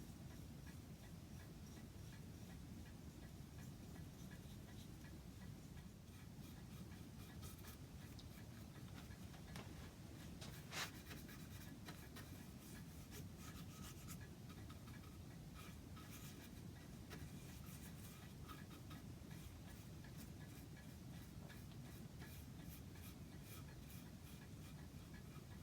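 Faint scratchy rubbing of 0000 wire wool over a black-polished wooden clock case, cutting back the polish, over a low hum and faint clock ticking. A single sharp click about 11 seconds in is the loudest sound.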